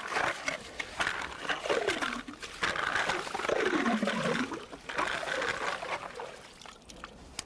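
Ice auger boring through thick river ice: a rough grinding scrape, with two falling tones at about two and four seconds in, dying away near the end.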